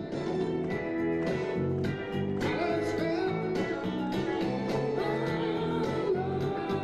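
Upbeat music with guitar and a steady beat, with singing.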